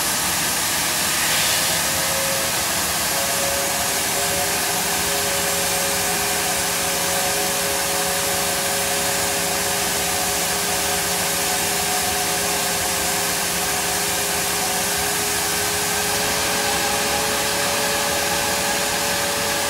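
GE CF34-8E turbofan of an Embraer E175 running on the ground during a maintenance test with its cowlings open: a steady jet hiss with a few faint, steady whining tones.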